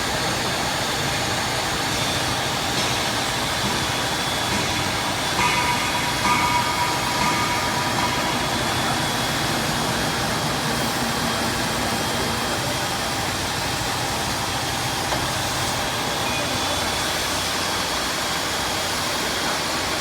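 Single-spindle drilling machine for steel beams running with a steady mechanical noise, with a faint high tone throughout. Between about five and eight seconds in there is a brief, slightly louder pitched tone.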